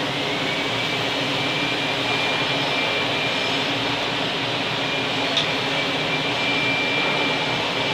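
Steady fan noise from welding-shop ventilation or machinery, an even rushing hum with a faint high whine, and a single short click about five seconds in.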